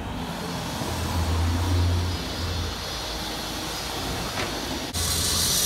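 City street traffic: a low vehicle rumble that swells about a second in and fades. About five seconds in the sound cuts abruptly to a louder, steady hiss.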